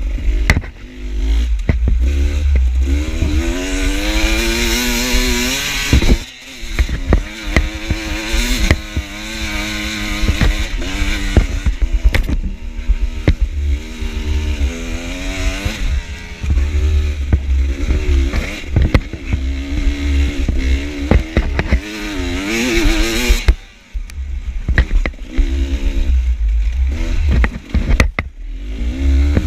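Enduro dirt bike engine revving up and easing off over and over as the rider works the throttle, cutting back sharply twice, with knocks and rattles from the rough ground.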